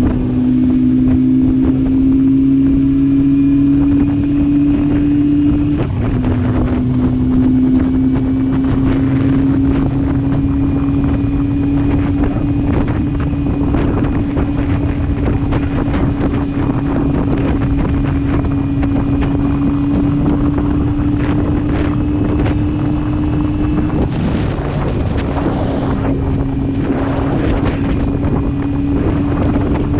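Motorcycle engine running at road speed under wind noise on the microphone. Its steady hum creeps slowly up in pitch and dips twice, once about six seconds in and again about four-fifths of the way through.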